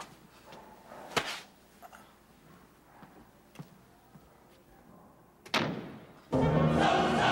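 A sharp knock about a second in, then a door slamming shut a little past halfway, its sound dying away. Loud choral music starts near the end.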